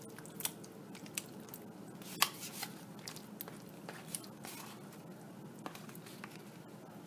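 A metal spoon scraping and tapping against a ceramic bowl as raw chicken pieces are pushed into a pan of curry sauce, with soft wet plops of meat landing; scattered sharp clicks, the loudest about two seconds in.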